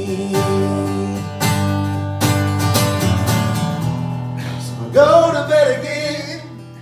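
Acoustic guitar strummed in a country song, its chords ringing between strokes. Near the end a singing voice holds a wavering, wordless note before the guitar dies down.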